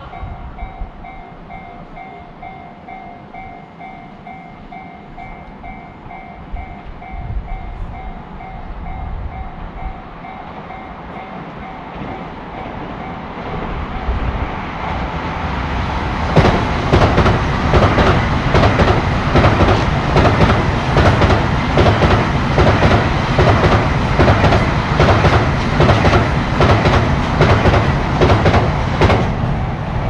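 A Shinkansen bullet train passing on an elevated viaduct. Its rumble rises from about 13 seconds in, and from about 16 seconds the wheels go by loudly with rapid, even clattering, easing off near the end. Before it arrives, a level-crossing bell rings faintly in a steady repeating pattern.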